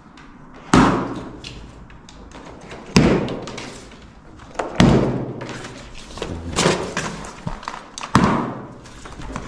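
Five sharp thuds on a cardboard shipping carton, one every one to two seconds, as its packing straps are cut and pulled off, with rustling in between.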